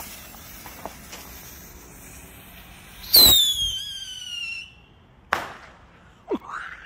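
Black Cat Neon Master Missile, a bottle rocket with report: the lit fuse sizzles faintly for about three seconds, then the rocket launches with a loud whistle that falls in pitch for about a second and a half. About two seconds after the launch it ends in a single sharp bang, the report.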